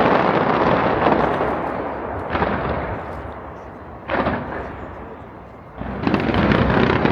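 Aerial fireworks bursting: a dense barrage of booms fades over the first two seconds, single bursts go off about two and four seconds in, and a new heavy barrage starts near six seconds.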